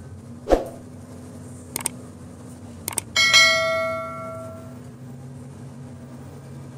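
Steel grab bucket clanging, metal on metal: a hard strike about three seconds in that rings on like a bell and fades over a second or so, with a duller thump near the start and a couple of light metallic clicks. A steady low machine hum runs underneath.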